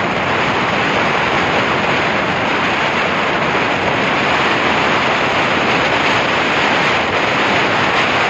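Loud, steady rush of wind on the microphone from a vehicle travelling at highway speed, with road noise underneath.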